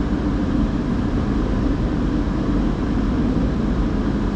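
Steady rumble and hiss of automatic tunnel car wash equipment running, heard from inside the car's cabin.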